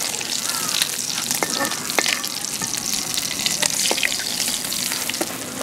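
Climbing perch fish pieces frying in hot oil in a wok, with a steady crackling sizzle. A few sharp clicks come from the metal spatula turning the fish.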